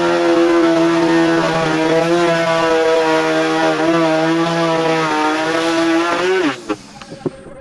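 An electric power tool's motor runs at a steady high speed with no load. About six and a half seconds in it is switched off and its pitch quickly falls as it winds down, followed by a few light clicks.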